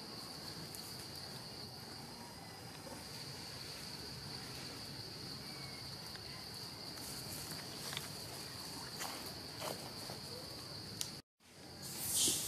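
Steady high-pitched drone of insects in forest, a single unbroken tone over a faint hiss, with a few faint clicks. The sound drops out completely for a moment about eleven seconds in, and a brief, louder hiss follows near the end.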